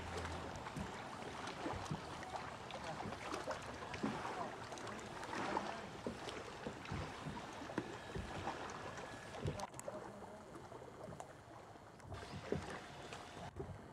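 Faint, steady whine of an RC seaplane's electric brushless motor and propeller flying at a distance, over an even outdoor hiss with scattered small clicks and knocks.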